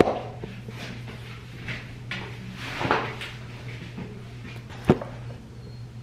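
Scattered light knocks and clatter of household objects being handled, with one sharper knock about five seconds in, over a steady low hum.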